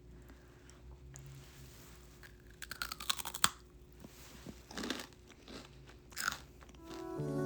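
Crisp crunching in a few short bursts: a cluster about three seconds in, then two shorter ones near five and six seconds in.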